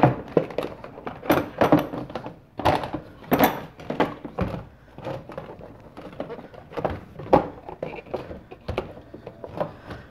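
Nissan Versa's plastic air filter box being lifted and worked out of the engine bay: irregular hollow plastic knocks, clunks and scrapes as it is pried from its mounts.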